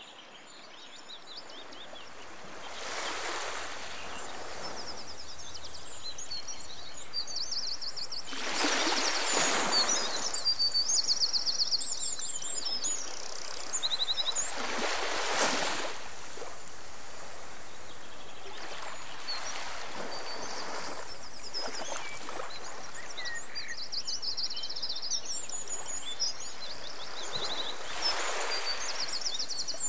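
Nature ambience soundtrack: small songbirds chirping and trilling in quick repeated high notes over a steady outdoor hiss that fades in over the first couple of seconds. A broad rushing noise swells up and dies away five times.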